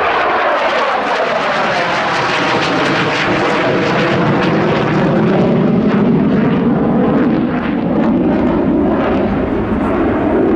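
F-16 fighter jet flying a display pass, its engine noise continuous and loud, with a pitch that falls steadily over the first several seconds and then levels off.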